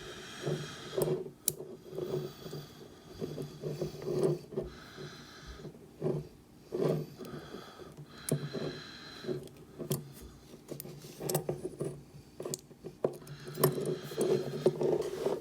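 Peerless Model 300 steel handcuffs being worked with a binder clip: irregular metallic clicks, scrapes and rattles from the cuff's mechanism as he tries to release its lug.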